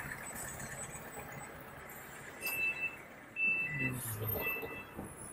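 City street background with a low traffic hum, and three short high electronic beeps about a second apart from about halfway in.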